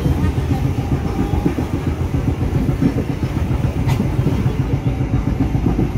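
Local passenger train running along the track, heard from aboard a carriage: a steady low rumble of the wheels and carriage, with one sharp knock about four seconds in.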